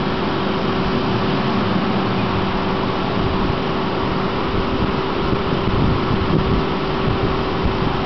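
A steady machine hum under an even rushing noise, unchanging throughout.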